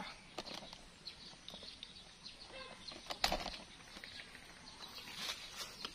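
Faint scattered rustling and handling noises, with one sharp knock about three seconds in.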